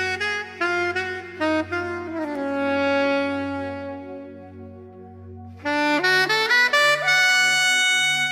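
Instrumental music with a saxophone-like lead: a run of short notes climbs to one long held note, then a second phrase starts about two-thirds of the way in over a sustained bass.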